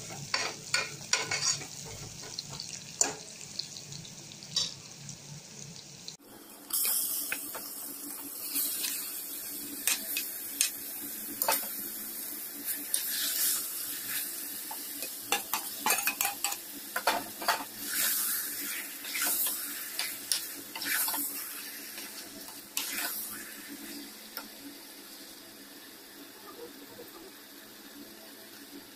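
Sliced onions sizzling in hot ghee in an aluminium pressure cooker while a steel ladle stirs and scrapes the pot. About six seconds in the sound cuts abruptly to a wetter stirring of marinated chicken pieces, with the ladle scraping and clinking against the pot.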